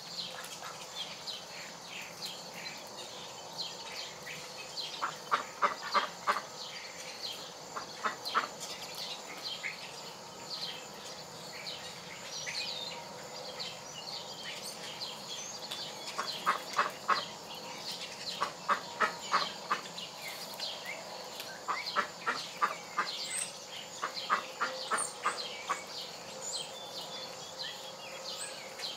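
Chickens giving short, quick clucks in repeated runs of several notes, over faint chirping of insects and wild birds.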